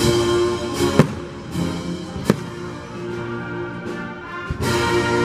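Orchestral music with a few sharp fireworks bangs over it, the loudest about a second in.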